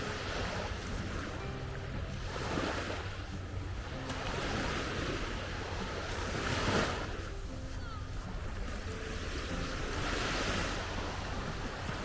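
Sea waves breaking and washing up a sandy beach, surging about five times a few seconds apart, with some wind on the microphone.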